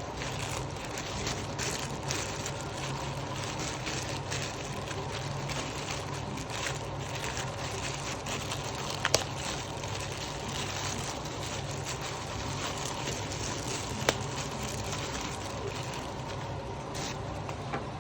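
Handling noise: light crackling and rustling over a steady low hum, with two sharp clicks, one about nine seconds in and one about fourteen seconds in.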